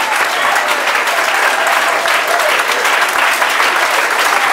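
Audience applauding, a dense, steady clapping with voices mixed in, as the music stops.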